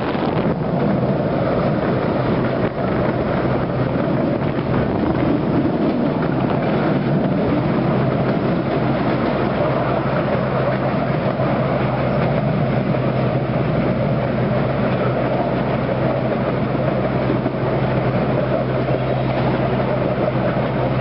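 Miniature ride-on park railway train running steadily along its track, heard from an open passenger carriage: a constant rumble of wheels on rails with a steady low hum.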